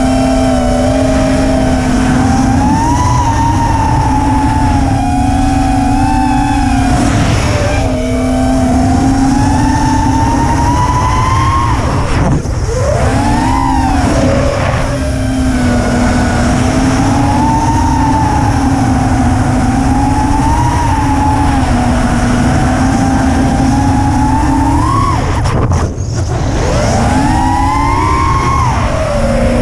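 FPV quadcopter's electric motors and propellers whining, the pitch rising and falling with the throttle. Twice the whine drops away briefly as the throttle is chopped, then climbs back. Wind rumble buffets the onboard camera microphone underneath.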